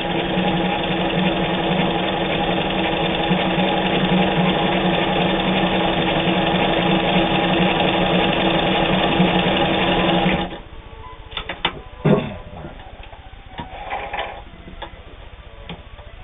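Vogue Stitch home sewing machine running steadily as it sews a stretch stitch through heavy denim, then stopping abruptly about ten seconds in. A few clicks and knocks follow.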